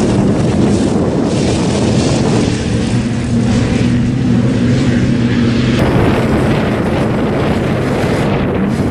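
Pickup truck engine running hard off-road, a steady engine note under heavy wind and road noise, with an abrupt cut to another stretch of driving about six seconds in.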